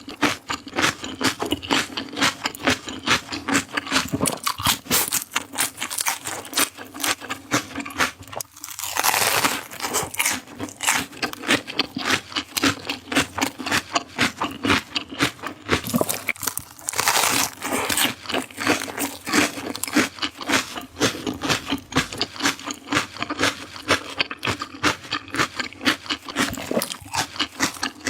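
Close-up crunching and chewing of crisp raw vegetables: an even run of crunches, about two or three a second, with two longer, noisier crunching spells about nine and seventeen seconds in.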